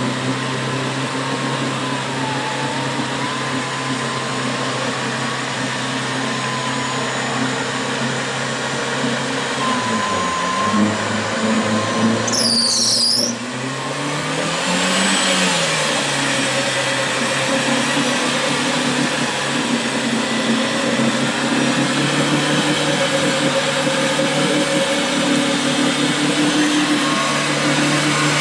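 Off-road 4x4's engine running steadily while it is winched through deep mud, with a whirring winch motor; the engine note sags about ten seconds in and picks up again a few seconds later. A brief high squeal sounds about twelve seconds in.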